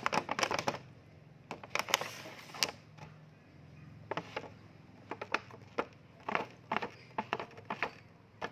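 Clear plastic blister packaging of a boxed toy tractor crackling and clicking as fingers press and tap it, in short clusters of sharp clicks.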